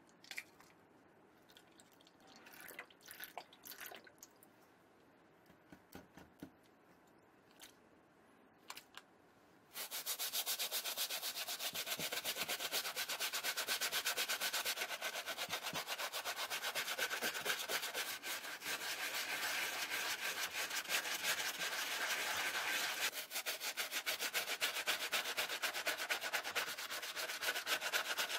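A brush scrubbing a white sneaker with foamy cleaner in rapid back-and-forth strokes, starting about ten seconds in; before that, only a few faint clicks.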